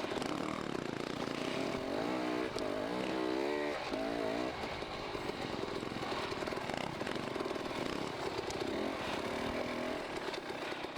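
Dirt bike engine running, revving up and down several times about two to five seconds in, then running more steadily.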